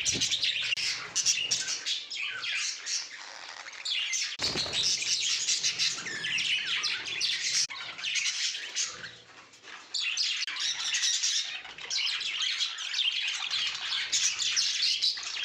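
A flock of budgerigars chattering, many short chirps and squawks overlapping in a continuous din that briefly thins out partway through.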